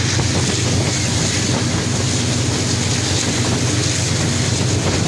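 Diesel locomotive running hard under load, a steady low engine drone with the rushing noise of the fast-moving train, heard from beside the locomotive as it climbs a gradient hauling about a thousand tons of cargo.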